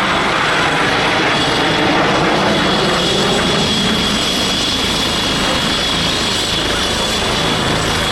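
Supermarine Spitfire's piston engine running steadily as the aircraft flies a display pass overhead.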